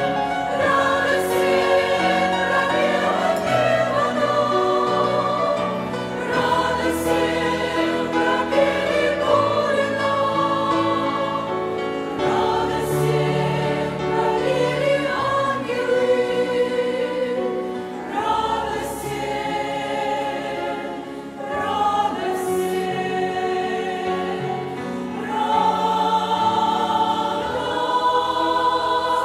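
Women's choir singing a hymn in Russian.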